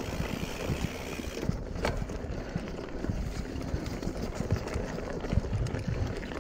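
Mountain bike riding a rough dirt singletrack, picked up close to the bike: a constant rumble of tyres on the trail with irregular knocks and rattles as it goes over bumps. A hiss that sounds like branches or wind fades away about a second and a half in.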